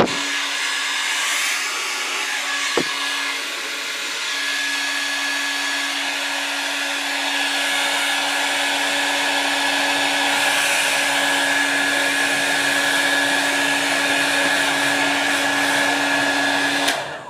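Hair dryer running steadily, a whooshing hiss with a constant hum and a higher whine, switched off abruptly near the end. A short click about three seconds in.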